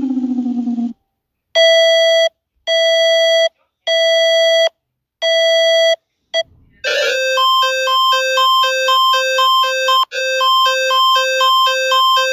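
Electronic emergency alert tones. A falling siren tone ends about a second in, then come four long, evenly spaced beeps. From about seven seconds in, a fast alternating high-low two-tone warble begins.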